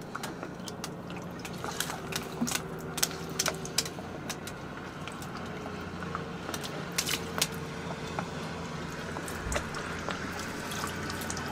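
Extra strong rum poured from a bottle into a live hogfish's mouth, liquid trickling and gurgling, with many small scattered clicks over a steady low hum.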